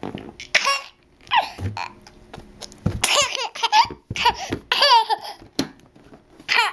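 Toddler laughing: a string of short, high-pitched bursts of giggling with brief pauses between.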